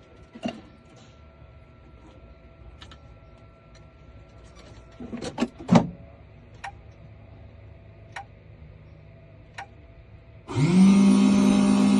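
Key-cutting machine: a few clicks and knocks as the key is handled and clamped, then near the end its electric cutter motor starts up, rising briefly in pitch, and runs loud and steady.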